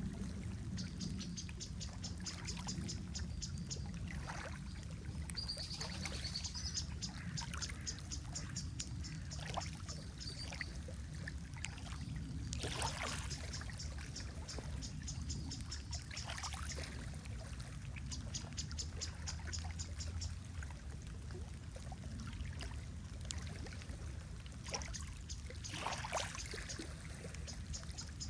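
Lake water lapping and gurgling at the shore, with a steady low rumble and a few soft splashes. Over it, a rapid high-pitched ticking call repeats in short trains several times.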